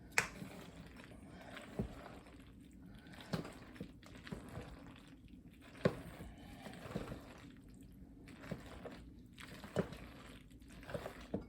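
Spoon folding a mayonnaise-dressed macaroni salad in a bowl: faint wet squishing with a few sharp spoon taps spread out over the stretch.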